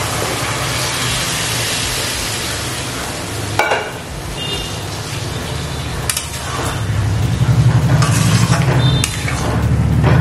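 Dal poured into a hot pan of fried fish head and tomato masala, sizzling with a steady hiss. A clack and short metallic clinks of a spoon against the pot follow about four seconds in, then a louder low rumble in the last few seconds as it is stirred.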